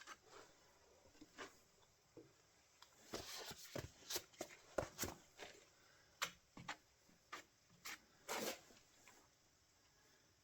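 Faint hand-work sounds: a dozen or so scattered taps and clicks, busiest in the middle, with a couple of short scrapes.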